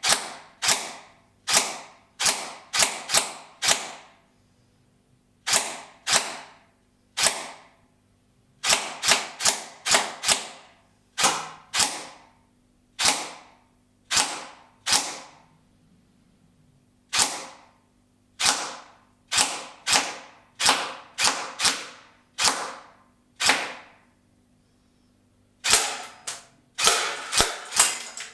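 Begadi upgrade version of the Arcturus AK-12K airsoft electric rifle (6 mm S-AEG) firing single shots, each a sharp crack with a short ringing tail. The shots come one at a time, in quick pairs and in short fast strings, getting faster near the end.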